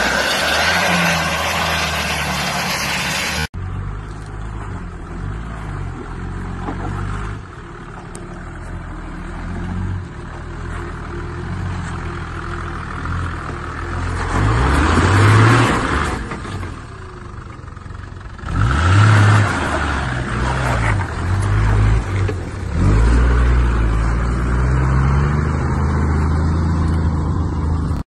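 A loud, even rushing noise, then a sudden cut to a Toyota Land Cruiser 80 series engine working off-road. The engine revs up in repeated bursts, its pitch rising with each stab of throttle, and drops back to a lower, steady run in between as the truck crawls over rocks.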